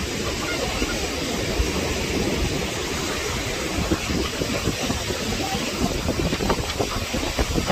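Wind noise on the microphone: a steady rushing hiss with irregular low rumbling.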